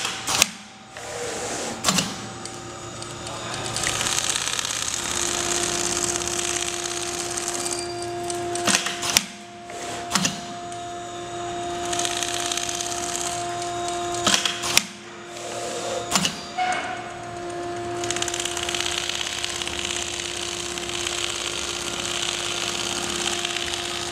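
CNC template sewing machine stitching quilting lines in a down-jacket sleeve panel: a steady running hum from the machine, broken by a few short stops (about a second in, around the middle, and again later) that are marked by sharp clicks.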